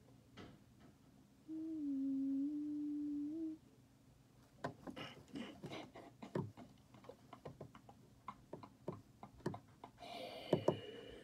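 A girl hums one held note for about two seconds, then a run of short, irregular clicks and scratches follows, with a couple of sharper clicks near the end.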